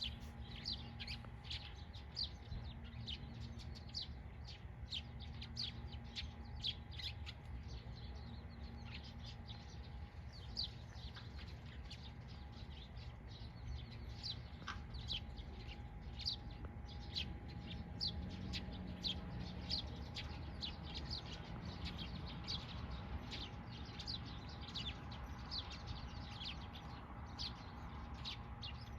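Small songbirds chirping continuously: rapid, short, high calls several times a second, over a steady low hum.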